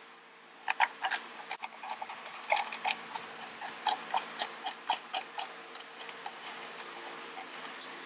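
Quick, irregular small metal clicks and ticks, several a second, as a retaining ring is threaded by hand onto the back of a brass push-button switch mounted in a metal motorcycle side cover, over a faint steady hum.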